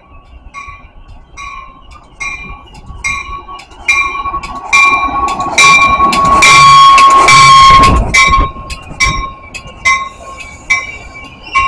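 Metra commuter train arriving cab car first and running close past the platform, with a loud horn blast for about three seconds in the middle while warning bells keep dinging about twice a second.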